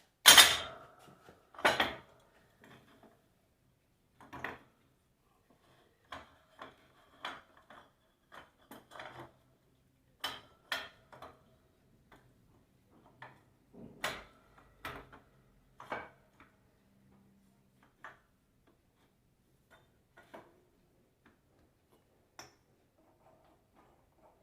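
Metal parts and tools clanking and clinking while an alternator housing is set up in a press to push out its worn bearing: two loud metallic knocks near the start, then scattered lighter clinks and taps that thin out toward the end.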